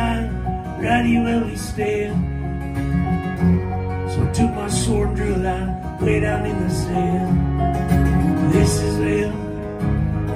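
Live acoustic country band playing an instrumental passage between sung lines: fiddle bowed over strummed acoustic guitar and keyboard.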